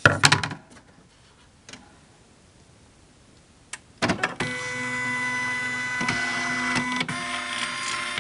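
Knocks and clicks of the embroidery hoop being handled, then a Singer Futura embroidery machine's motor-driven embroidery unit running on power-up: a steady whirring motor whine for about four seconds that cuts off suddenly near the end.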